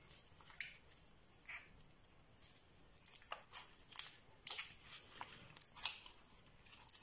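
Slime being squeezed and kneaded by hand, making small irregular sticky pops and clicks, the loudest about six seconds in.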